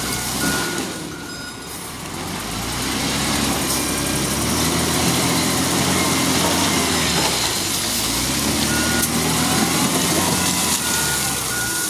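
Wheel loader's diesel engine working, revving up about two seconds in, with its reversing alarm beeping at times.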